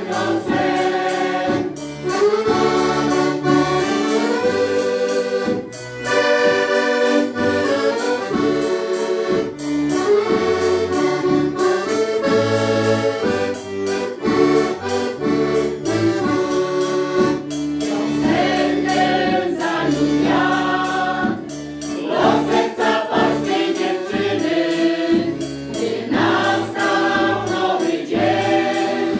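A folk choir of women's and men's voices singing together to accordion accompaniment, with a bass drum keeping the beat.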